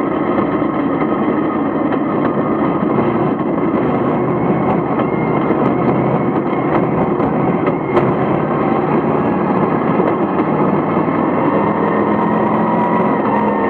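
Vintage modified race car's engine running hard on a dirt track, heard from inside the cockpit as a steady, loud drone. A single sharp knock comes about eight seconds in.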